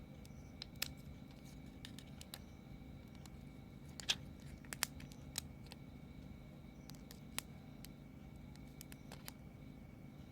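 Scattered faint sharp clicks and taps as the thin layers of a phone's LCD panel are handled and separated, the loudest about four seconds in, over a low steady background hum.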